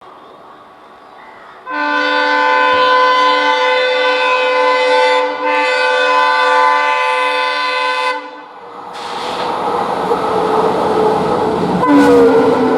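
An Indian Railways diesel locomotive's air horn sounds a long, loud multi-note blast that starts about two seconds in and briefly dips midway, lasting about six seconds. The train then passes with a rising rush of engine and wheel noise on the rails, and the horn sounds again near the end.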